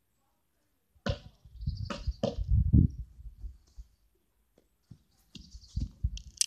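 Dull thumps and rustling close to the microphone, as of someone walking past right by it: one group of uneven thumps about a second in, and a few more near the end.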